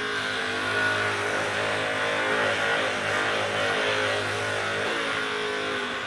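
Handheld percussion massage gun running while pressed against a person's upper back: a steady motor buzz that thins out about five seconds in.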